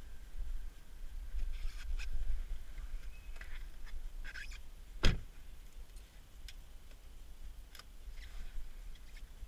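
Someone climbing into the driver's seat of a 2013 Audi A3: clothing rustles and shuffles, then the car door shuts with one solid thump about five seconds in, followed by a few light clicks inside the cabin.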